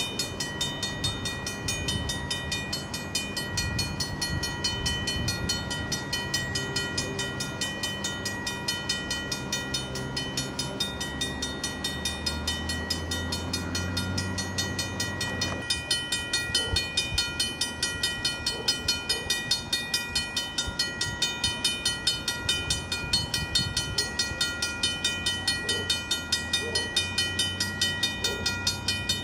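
Railroad crossing warning bell ringing on and on in a rapid, even ding. Under it, a low rumble in the first half stops abruptly about halfway through.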